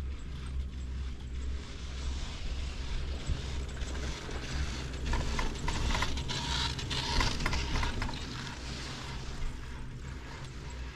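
Riblet center-pole double chairlift's chair grip and haul rope rolling over a tower's sheave train, a run of clicks and rattles about five to eight seconds in. Under it runs a steady low rumble.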